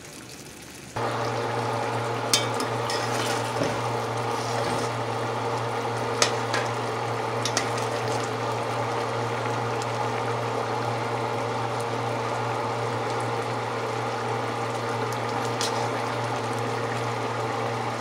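Curry chicken simmering in a pot, starting suddenly about a second in, while a metal spoon stirs it with a few sharp knocks against the pot, over a steady hum.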